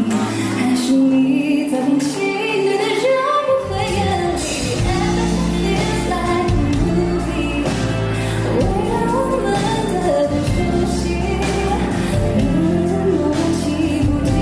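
Female pop singer singing a ballad live with band accompaniment; the bass and fuller backing come in about three and a half seconds in.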